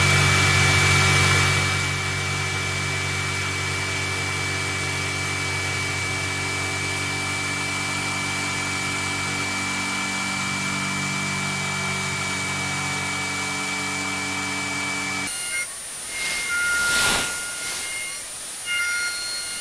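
CNC milling machine with its end mill cutting an aluminium pulley. The spindle runs with a steady low hum, a high whine and a hiss. About 15 seconds in, where the footage runs at 15x speed, the sound changes abruptly: the hum drops out and higher whines come and go.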